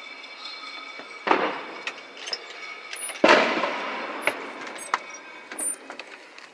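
Fireworks going off: two loud bangs, about a second and about three seconds in, with several smaller pops and cracks between and after them.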